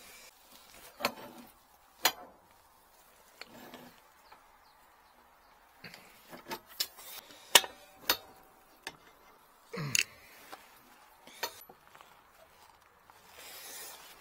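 Scattered sharp clinks and knocks of metal pipes and fittings being handled during repair work on an electric water heater, the loudest a cluster a little past the middle, with a soft rustle near the end.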